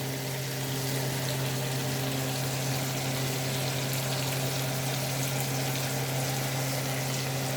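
Shrimp and fish frying in hot oil, a steady, even sizzle with a constant low hum beneath it.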